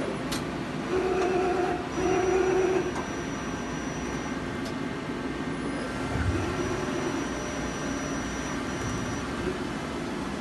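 Hitachi Seiki HT20SIII CNC lathe running, a steady mechanical hum. Short, even-pitched hums of its moving parts come about a second in, again at two seconds, and once more, weaker and with a low thud, about six seconds in.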